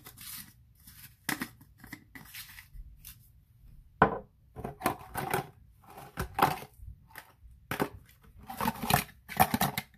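Off-camera handling of spice containers: irregular crinkling, crackling and clicking, a quick string of short sharp sounds that comes thicker in the second half, the loudest about four seconds in.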